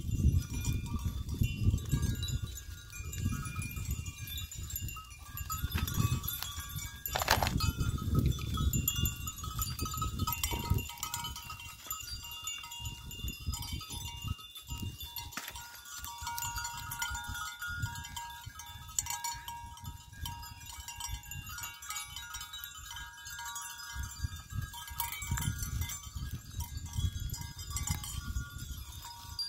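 Goats grazing and browsing leafy shrubs, with rustling and tearing of foliage and occasional goat calls, over a low, gusty rumble of wind on the microphone that comes and goes.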